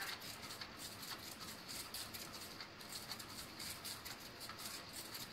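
Electronic cat toy's wand sweeping under its nylon cover: a rapid, irregular scratchy rustling.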